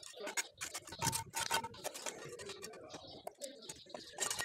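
Bricklayer's trowel tapping and scraping on red clay bricks and mortar as bricks are set: a run of short, sharp knocks and scrapes.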